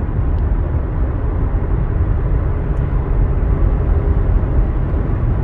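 Inside the cabin of a 2015 Nissan Murano accelerating at highway speed: a steady, loud rumble of road and wind noise, with the V6 engine pulling through its CVT. Engine revs and speed are rising.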